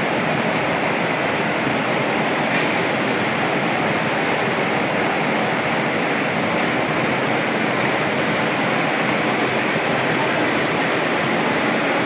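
Steady, even rushing noise at a constant level with no separate clicks or knocks in it.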